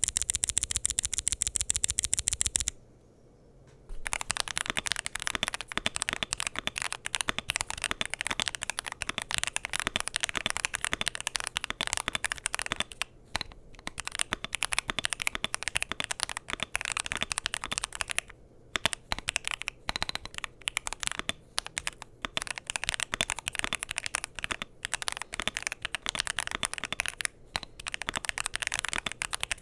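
Mechanical keyboard with Kailh Box Inductive switches, Cherry-profile PBT double-shot keycaps and an aluminum gasket-mount case (Epomaker Magcore 87) being typed on fast and continuously, in dense clattering keystrokes with a few brief pauses. It opens with about two and a half seconds of very evenly spaced rapid clicks, then a second of quiet before the typing starts.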